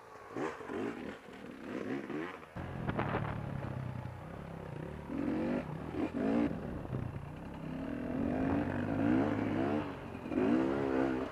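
Beta 250 RR two-stroke enduro bike engine revving up and down again and again as the throttle is worked over rough ground, with a few clattering knocks about three seconds in.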